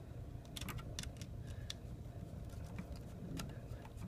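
Faint, irregular small clicks and ticks of a screwdriver working the terminal screw of an electrical outlet, with the wire and metal screw terminal scraping, over a steady low hum.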